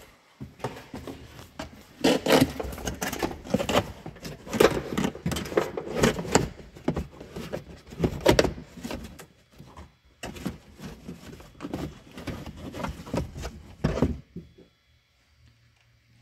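Plastic interior trim pieces of a Toyota Prius being handled and fitted back into place: a busy run of knocks, clatters and rustling that stops near the end.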